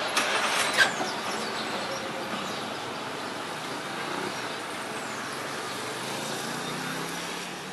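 Budd RDC diesel railcar running as it pulls away along the track: a steady engine and rolling noise, with a few sharp clicks and knocks in the first second.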